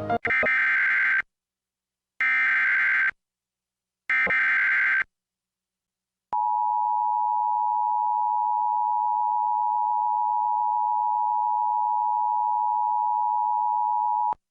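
Emergency Alert System signal: three short bursts of screechy digital SAME header data about a second apart, then the steady two-tone attention signal (853 and 960 Hz) held for about eight seconds before it cuts off.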